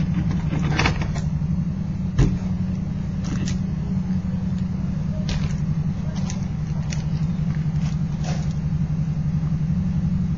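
A steady low mechanical hum, with a few light clicks and taps scattered through it.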